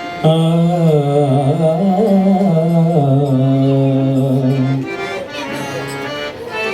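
Indian devotional singing with harmonium: a male voice enters loudly just after the start with a wordless, ornamented alap-style phrase, holds one long note until about 5 s, then continues more quietly over the harmonium.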